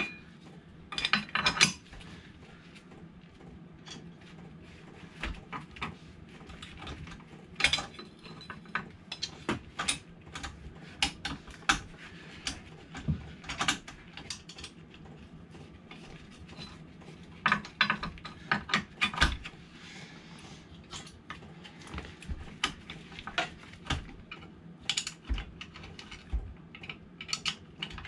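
Hand tools clicking and clinking on metal while motorcycle engine mounting bolts are worked: irregular sharp clicks in short clusters with pauses between them.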